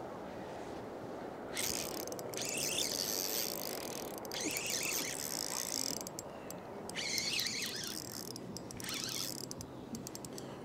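Spinning reel being cranked in five short spurts of a second or so each, a whirring mechanical ratcheting, while a hooked white bass is reeled in on a bent rod. A steady low rush of river and wind runs underneath.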